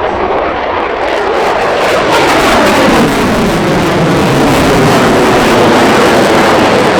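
F-22 Raptor's twin jet engines in a loud, low fly-past. The jet noise swells about a second in, then stays loud, with a sweep falling in pitch as the jet passes.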